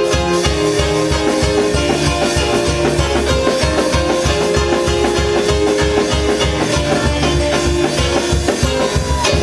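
Upbeat instrumental music with a fast, steady bass beat under long held chords.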